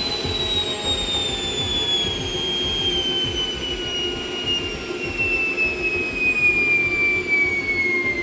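Homemade electric jet engine being throttled down: the high whine of its electrically driven compressor falls steadily in pitch over a rough rushing roar as the thrust drops.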